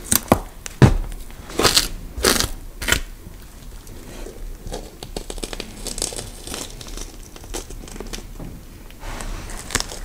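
Horror sound effect of sharp crunching snaps: about six loud ones over the first three seconds, then quieter crackling and rustling. Steadier noise comes in near the end.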